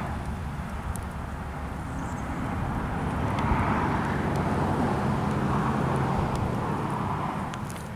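A distant engine drone with a low rumble, swelling a few seconds in and easing off near the end.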